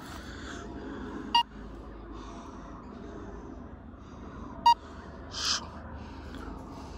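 Laser X toy laser-tag blaster giving two short electronic beeps, a few seconds apart, over light outdoor background noise, with a brief hiss between the second beep and the end.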